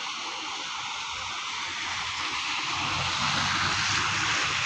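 Vehicles driving through a flooded road: a steady rush of water and tyres swishing through it, with an engine hum that grows louder in the second half as a motorcycle passes close.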